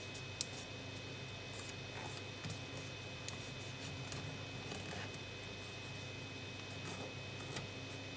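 Paper crackling and rustling as fingers fold and press creases into a sheet of origami paper, with scattered short ticks, the sharpest about half a second in, over a steady faint hum and hiss.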